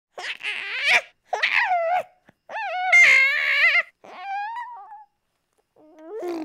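A series of high-pitched, wavering vocal cries, about five in a row, cut apart by short silences.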